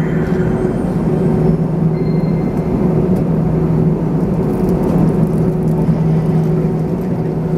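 Cabin noise inside an Airbus A321ceo on the ground before takeoff: a steady engine hum at idle with a low drone and rumble underneath.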